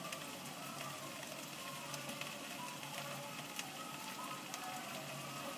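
Steady sizzle of noodles frying in a wok, over the hiss of rain, with a few light clicks.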